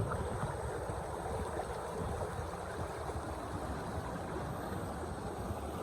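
Small mountain stream flowing, a steady rush of water.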